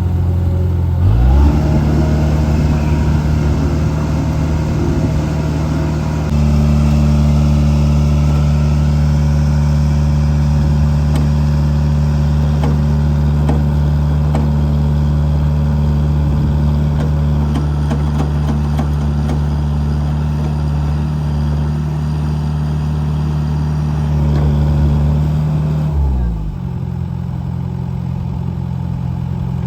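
Engine of heavy road-construction machinery running steadily at a constant speed. It speeds up about a second in, steps up again around six seconds, and slows down near the end.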